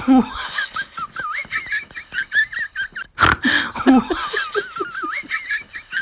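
High-pitched laughter in quick rising and falling bursts, with a short loud noisy burst about three seconds in.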